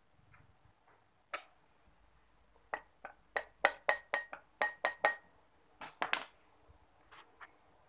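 Sharp metallic clinks and taps as the metal parts of a coconut grater's electric motor are handled while it is taken apart; a quick run of them from about three to five seconds in, several ringing briefly, then a louder pair of clinks about six seconds in.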